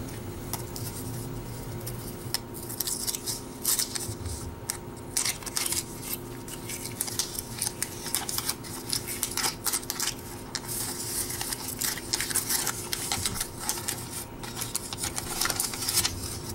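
Wax-paper wrapper of a 1990 Fleer baseball card pack crinkling and crackling as it is unfolded and torn open by hand, in irregular crackles that start about two seconds in.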